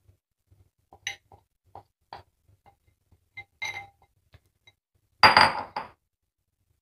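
Steel spoon clinking and scraping against a glass bowl as a crumbly mixture is scooped out: scattered light clinks, then a louder clatter about five seconds in.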